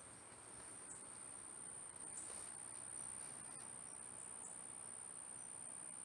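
Faint, steady high-pitched drone of insects chirring, unbroken throughout.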